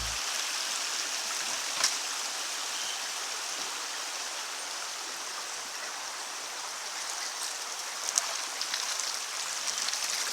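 Steady rushing water noise, even and unbroken, with a faint click about two seconds in and another about eight seconds in.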